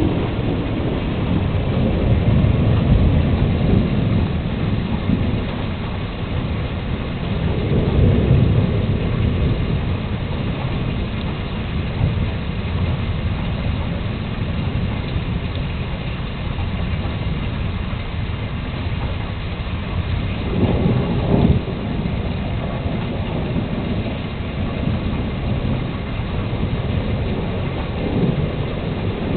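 Thunderstorm: steady rain with rolling thunder. Low rumbles swell in the first few seconds and again around eight seconds, and there is a shorter, sharper burst a little past twenty seconds.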